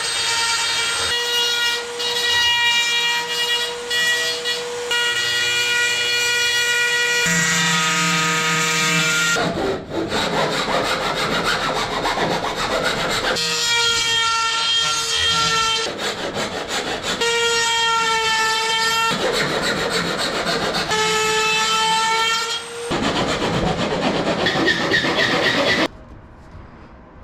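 Dremel rotary tool with a thin metal-cutting bit trimming the aluminum spar, whining at a steady high pitch in spells of a few seconds that alternate with rough grinding as the bit bites into the metal. It stops about 26 seconds in.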